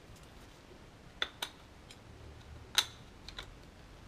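Metal motorcycle clutch parts clicking and clinking as they are handled on a workbench: a few separate sharp clicks, the loudest about three seconds in.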